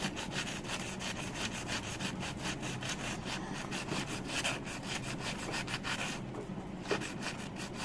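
Metal blade being rubbed back and forth on sandpaper to sharpen it, in quick, even rasping strokes, with a brief pause about six seconds in.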